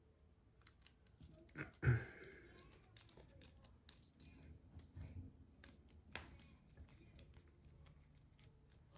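Light scattered clicks and taps of a screwdriver and small folding-knife parts being handled and screws started, with one louder knock about two seconds in.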